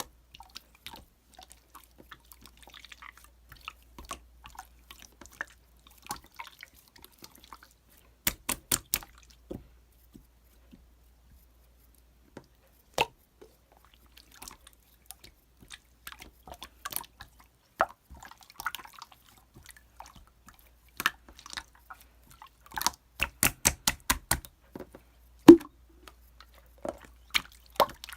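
Slime being squeezed and pressed by hand, making sharp wet clicks and small pops that come in quick runs, with softer crackling squishes between.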